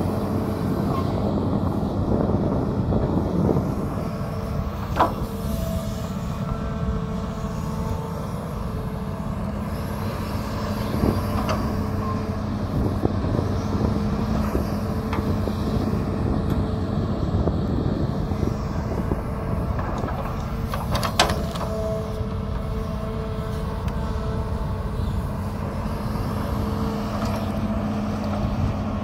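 Hitachi hydraulic excavator's diesel engine running steadily with a constant hum while the machine digs wet mud. Two sharp knocks stand out, about five seconds in and again about twenty-one seconds in.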